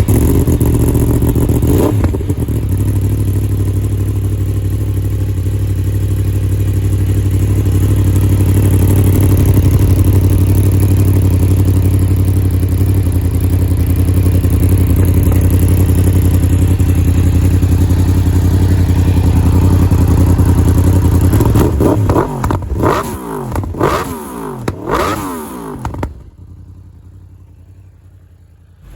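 2022 Yamaha YZF-R1's 998cc crossplane inline-four running through a full Akrapovič Evolution titanium exhaust. It runs loud and steady for about twenty seconds, then is blipped several times, revs rising and falling, before the sound drops away sharply about three seconds before the end.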